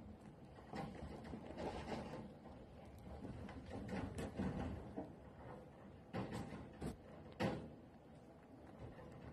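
White chinchilla nibbling a piece of food held in its front paws: faint, irregular crunching clicks, with a few sharper clicks a little past the middle.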